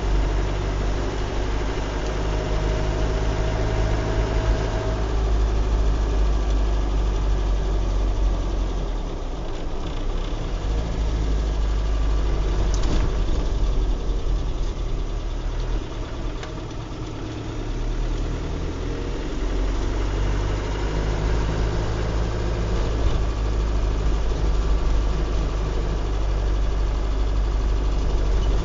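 Car engine and tyre noise heard from inside the cabin while driving on a wet road: a steady low rumble that eases briefly twice, about a third of the way through and just past halfway.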